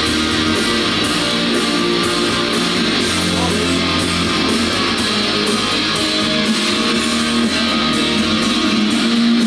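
Loud guitar-driven music with strummed guitar and a steady beat.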